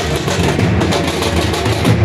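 Loud festival drumming: a drum group playing fast, dense strokes over a deep, continuous beat.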